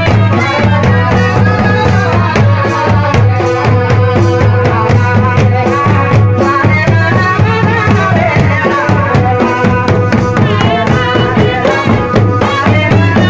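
Live village folk music: a shehnai-type wind pipe plays a wavering melody over loud, steady drumming with many strikes. Nachni dance music.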